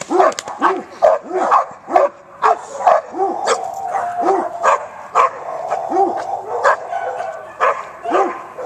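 A dog in protection training barking over and over at the helper holding the bite sleeve, worked up ('loaded') for the bite. The barks come about two a second at first and then space out, with high whining between them in the second half.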